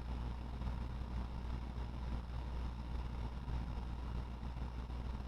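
Steady low hum with a faint, even hiss: background noise.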